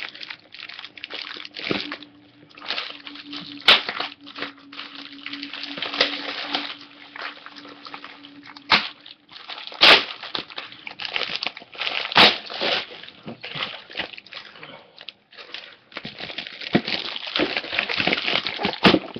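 Plastic wrapping of a Match Attax trading-card multipack being crinkled and torn open by hand: irregular crackling and rustling, with a few sharper snaps.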